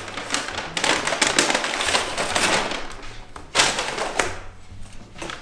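Brown paper takeaway bag rustling and crinkling in bursts as hands rummage in it, with light knocks as plastic sushi trays are set down on a wooden table.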